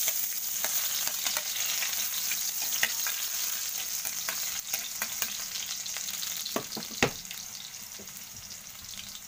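Chopped garlic sizzling in hot cooking oil in a wok as it is sautéed, the first step of the sauté. The sizzle starts at once, eases off toward the end, and is broken by a few sharp knocks, the loudest about seven seconds in.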